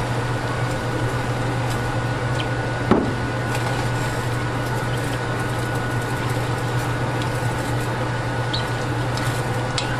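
A steady low mechanical hum with a faint steady high whine, like a running fan or motor, and one sharp knock about three seconds in.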